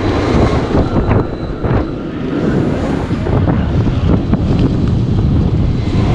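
Heavy wind and handling rumble on a hand-held camera microphone, with a few short knocks in the first two seconds.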